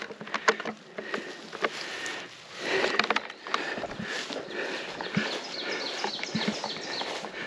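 Footsteps rustling and snapping through brush and leaf litter, with irregular sharp twig cracks.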